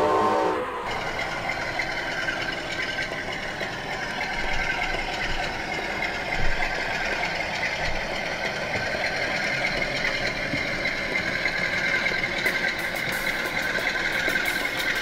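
HO-gauge model of a British Class 47 diesel locomotive running slowly along the track: a steady mechanical running sound, with one short thump about six and a half seconds in. A bit of music ends under a second in.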